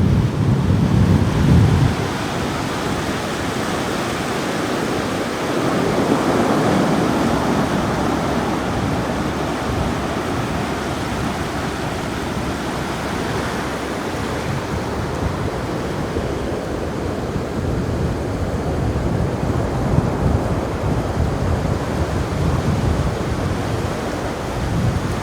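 Ocean surf washing up the beach in slow swells, with wind buffeting the microphone in low gusts at the start and again near the end.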